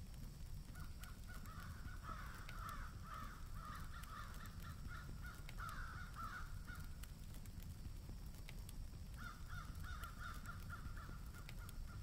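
Crows cawing in two runs of short, quickly repeated calls: the first from about a second in until about seven seconds, the second starting about nine seconds in. A steady low rumble runs underneath.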